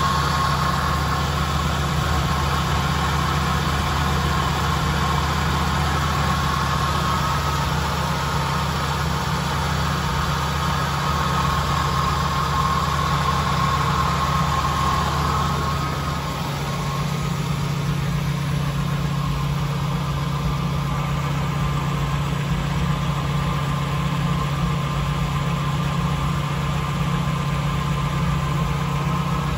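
1985 Jeep CJ7's engine idling steadily; the lowest rumble thins out about halfway through.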